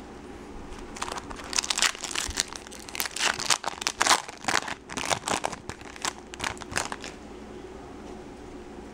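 Foil wrapper of a baseball card pack crinkling as it is torn open by hand. It starts about a second in and stops about seven seconds in.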